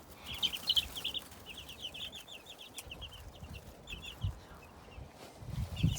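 Young chicks peeping: a rapid run of short, high cheeps that thins out about four and a half seconds in. A couple of dull low thumps come near the end.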